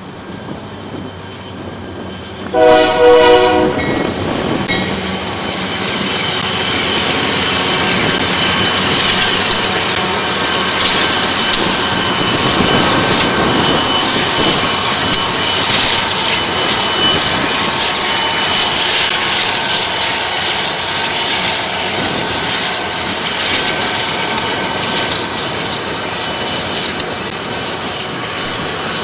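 A Union Pacific freight train's horn gives one short blast about three seconds in. After it comes the steady rumble of a freight train of covered hoppers rolling along the curve, growing louder. Thin high wheel squeals come and go and are strongest near the end.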